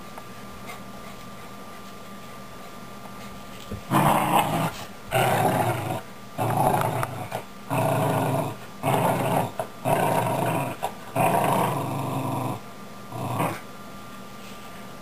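Small dog play-growling while tugging on a toy, in a series of about seven short growls starting about four seconds in.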